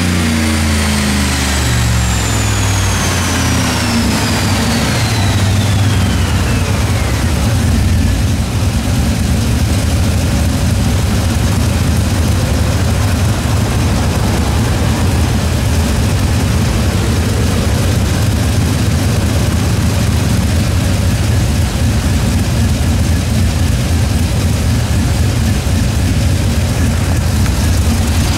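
Turbocharged 4.8-litre V8 in a pickup on a chassis dyno coming down off a pull: the engine note falls away over the first few seconds while a high whine sweeps down over about the first seven seconds. It then settles into a steady low idle rumble.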